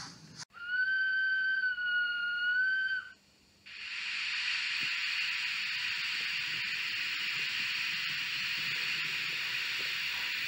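Sound system of a model steam locomotive: one whistle blast about half a second in, lasting about two and a half seconds. After a short pause a steady steam hiss starts and keeps on.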